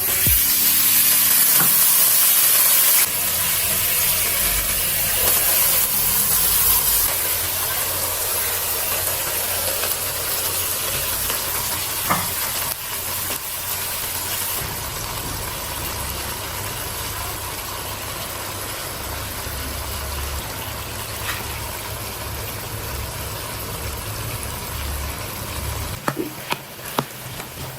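Food sizzling in a hot pot: a steady hiss that is loudest in the first few seconds and drops abruptly in level a few times.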